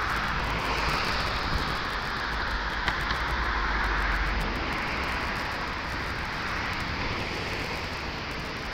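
Steady rushing noise of a river in flood, swelling and fading slowly, with wind rumbling on the microphone.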